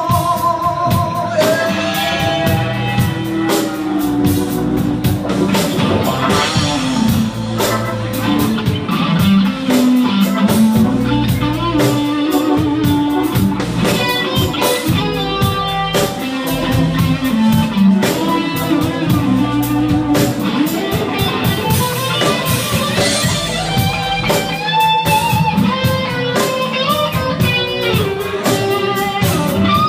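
Live rock band playing: electric guitar out front over bass guitar and drum kit.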